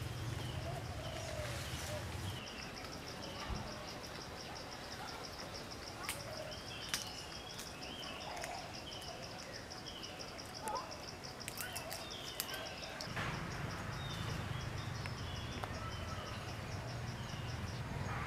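Forest ambience: an insect trilling in a steady, fast, high-pitched pulse that starts about two seconds in and stops shortly before the end, with scattered short chirps above it. A low rumble runs at the start and comes back for the last five seconds.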